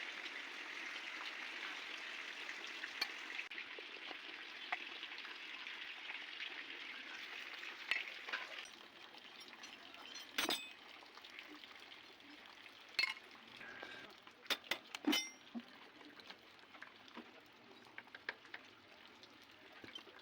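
A steady hiss that drops away after about eight seconds, with scattered sharp clinks and taps, the loudest about ten seconds in and a quick cluster around fifteen seconds.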